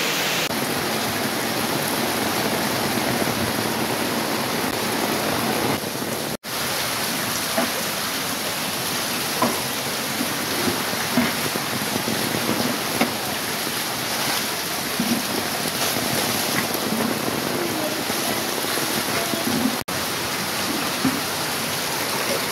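Heavy rain pouring down steadily onto standing floodwater, an even hiss with small splashes, broken off very briefly twice.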